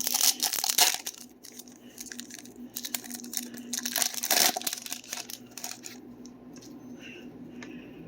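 Foil trading-card pack wrapper being torn open and crinkled, in two bursts of crackling: one in the first second, another about three to four and a half seconds in.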